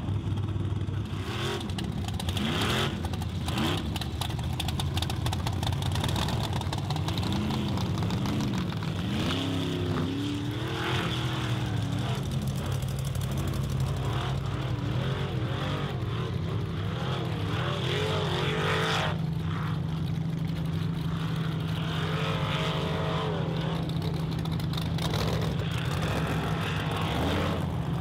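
Off-road racing buggy's engine running and revving, its pitch rising and falling repeatedly over a steady low drone.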